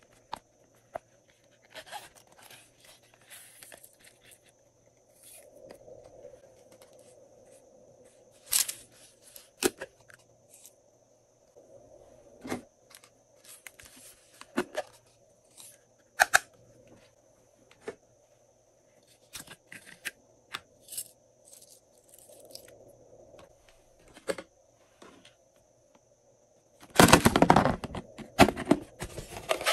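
Hands handling pink plastic and silicone toy cases: scattered taps, clicks and rustles, with a louder stretch of rattling and scraping near the end.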